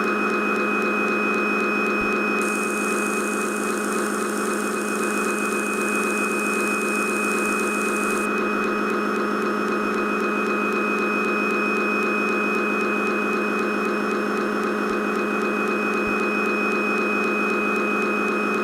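A steady machine hum made of several fixed tones. A high hiss joins about two seconds in and stops about eight seconds in.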